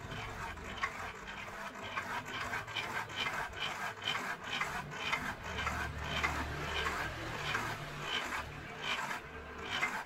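Drill-powered mini bike pump working through a crank, its plunger rasping up and down about three strokes a second over a low motor hum as it pumps air into a motorbike tyre; it cuts off suddenly at the end.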